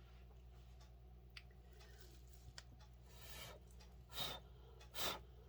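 Short puffs of breath blown through the mouth onto wet pour paint to push it around: a softer exhale about three seconds in, then two sharp puffs near the end.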